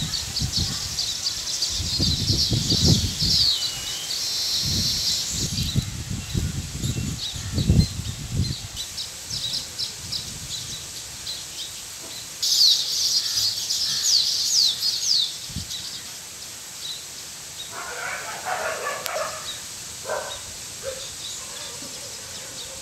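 Baya weavers chattering at their colony of hanging nests: rapid high chirps and buzzy trills in bursts, busiest at the start and again about twelve to fifteen seconds in. Low rumbles run under the first eight seconds.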